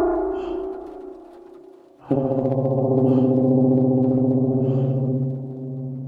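A low, steady droning tone with many overtones. An earlier drone fades out, and a new one comes in abruptly about two seconds in and holds, easing off slightly near the end.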